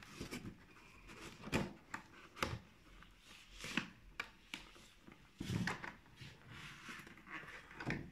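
Irregular rustling of plastic film with a few light knocks as a plastic-wrapped cardboard box is handled and moved about on a table.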